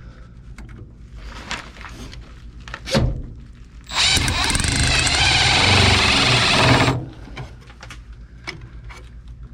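Cordless power driver running a screw in for about three seconds, fastening a transformer down, starting about four seconds in. A sharp knock comes just before it, amid light handling noises.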